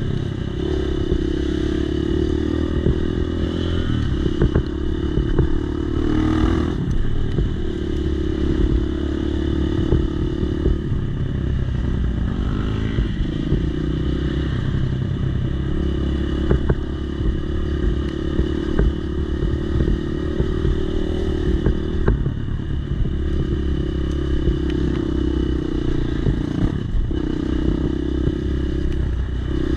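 Dirt bike engine running under way on a dirt trail, the revs dropping and picking up again several times as the throttle is worked. Scattered clatter comes from the bike over the rough ground.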